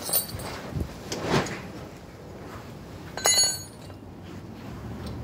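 Metal hand tools clinking, with one sharp, ringing clink of metal on metal a little over three seconds in, after some lighter clicks and rustling.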